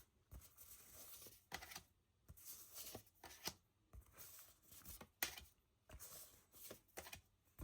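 Faint rustles and soft taps of thick art cards being slid and handled one after another, a dozen or so small scrapes spread through the quiet.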